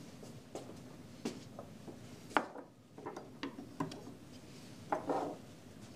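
Handling noises on a lab bench: a few light knocks and clicks as a glass beaker is set down and a plastic chopping board of chopped onion is taken up, the sharpest knock about two and a half seconds in.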